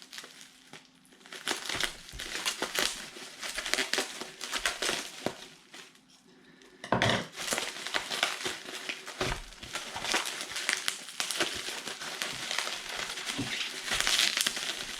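Packaging wrapping crinkling and rustling as a packaged item is handled and unwrapped by hand, with two knocks about seven and nine seconds in and busier crinkling near the end.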